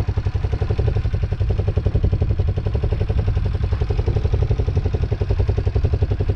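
ATV engine idling steadily with a rapid, even low pulse.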